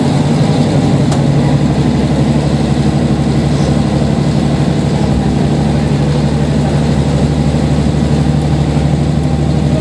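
Diesel railcar engine running steadily under the floor, heard inside the passenger cabin, a low even hum as the train moves slowly along a station platform.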